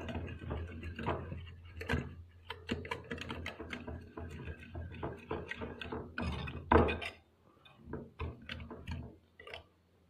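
Wire whisk beating a runny batter in a ceramic bowl: quick, irregular clicks and scrapes of the metal against the bowl, the loudest clack about seven seconds in, then fewer and softer strokes.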